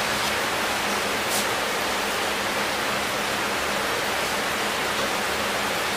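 A steady, even hiss that does not change, with one faint tick about a second and a half in.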